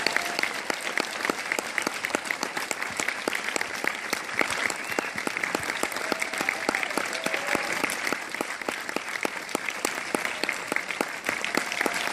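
Large audience applauding steadily, heard from among the seats.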